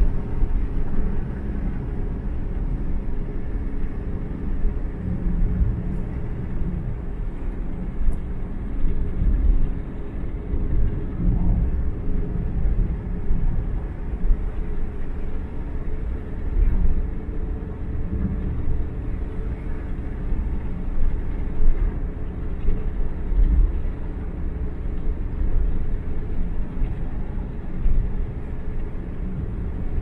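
A car driving on an open asphalt road: the low, continuous rumble of the engine and tyres.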